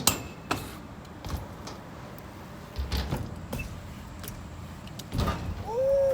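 BMX bike riding: scattered clacks and knocks of the bike's frame, wheels and pegs landing and hitting the ramp, and near the end a short squeak that rises and falls, the loudest sound.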